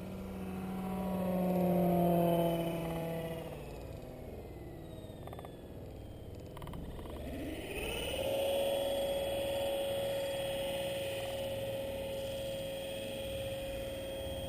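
The 70mm electric ducted fan of a foam RC F/A-18 jet whining, its pitch falling and the sound fading over the first few seconds as the throttle comes back for landing. About eight seconds in the whine rises again and holds a steady pitch.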